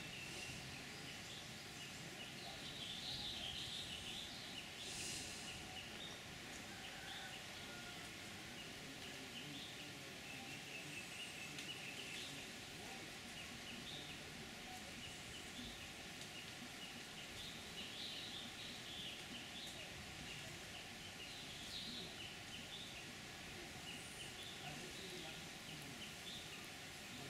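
Outdoor ambience with small birds chirping and twittering on and off, over a steady background hiss.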